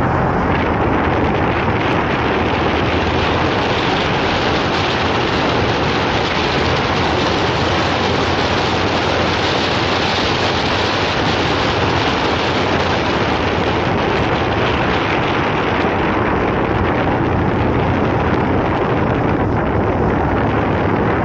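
Steady wind rushing over the microphone of a motorcycle on the move, over the low hum of the bike's engine at a steady cruising speed; the engine hum comes up more clearly in the last few seconds.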